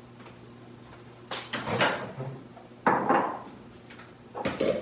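Knocks and clunks of a microwave door being opened and shut as a glass bowl is put inside: three groups, about a second and a half in, about three seconds in, and near the end.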